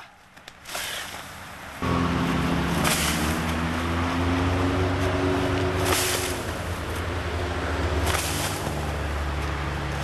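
An engine running steadily, a low hum with a few faint knocks, starting abruptly about two seconds in.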